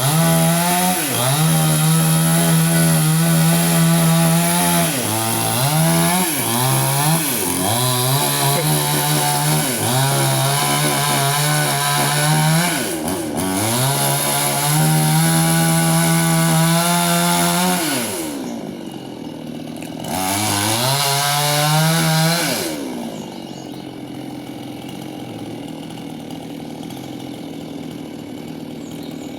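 Stihl two-stroke chainsaw running at high revs while cutting wood, its pitch dipping sharply and recovering several times. Near the end it drops back to a quieter steady idle.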